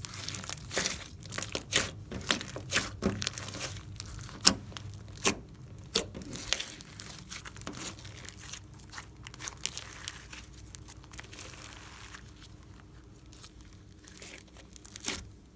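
Slime being squished and worked by hand, with a quick run of sharp, crinkly clicks and pops that thins out over the second half, and one last pop near the end.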